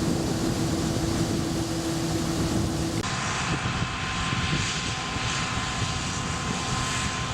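Combine harvester running steadily with an engine drone and a held tone; about three seconds in the sound cuts abruptly to a similar drone with a higher tone.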